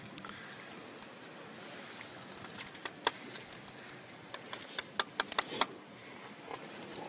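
A string of sharp clicks and taps from hands-on work with tools and materials, bunched in the middle seconds, over a steady outdoor hiss of wind and water.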